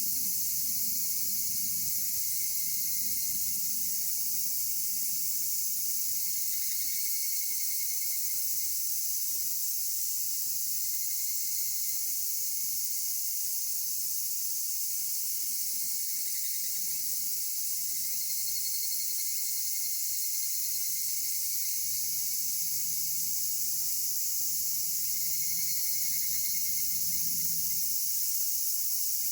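Dense summer insect chorus, including higurashi (evening cicadas): a steady, high-pitched shrill drone, with short calls standing out above it every several seconds.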